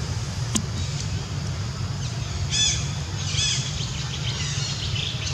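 Birds chirping: two quick runs of high, arching chirps a little past halfway, then fainter chirps near the end, over a steady low rumble.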